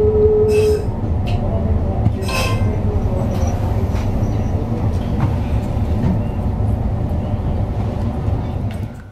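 Meitetsu limited express train running, a dense low rumble with scattered clicks and rattles. A loud held tone stops sharply just under a second in, and the sound drops away near the end.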